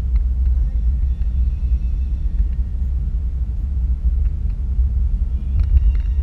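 Steady low rumble of road and engine noise inside a car's cabin as it drives along a highway.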